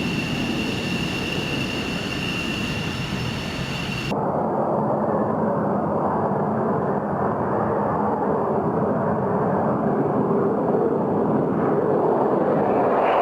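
F-16 fighter jet's turbofan engine: a steady jet whine with a high tone over a rumble, cutting abruptly about four seconds in to a broad jet roar that slowly grows louder.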